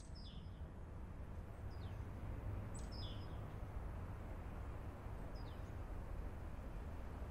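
Small birds chirping now and then: a handful of short, high calls that each drop quickly in pitch. Under them is a steady low background rumble, which fades up over the first second or two.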